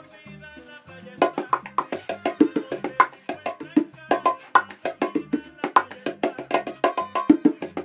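A pair of handmade bongos played with bare hands: after a quieter first second, a fast, busy run of sharp hand strikes, several a second.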